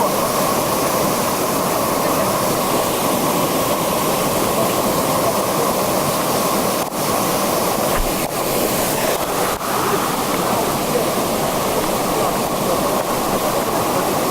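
Waterfall: a loud, steady rush of falling water, broken by a few momentary dips near the middle.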